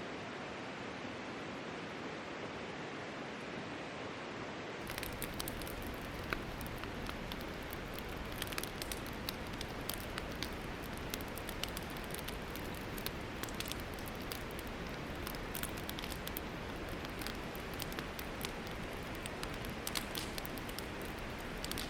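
A steady rushing noise, then from about five seconds in a wood campfire crackling: irregular sharp pops and snaps over a steady hiss.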